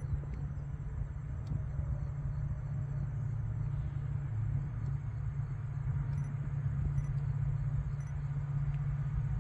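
Korail 4400-class diesel locomotive running at full throttle (notch 8) while still some distance off, heard as a steady low engine drone that grows slightly louder as it approaches.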